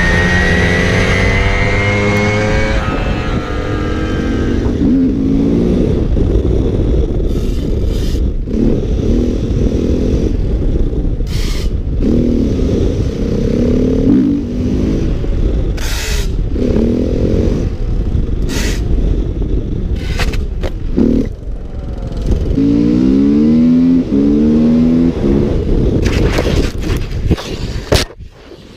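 A 50cc moped engine whining for the first few seconds, then a KTM EXC 450's single-cylinder four-stroke engine accelerating hard through the gears again and again, with heavy wind rush. Near the end a clattering scrape as the bike crashes, and the engine sound cuts off.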